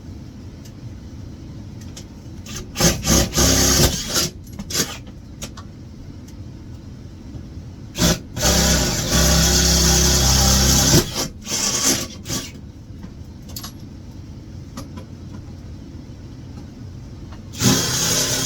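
Power drill running in short bursts and one longer run of about three seconds, its bit boring through sheet-metal enclosure.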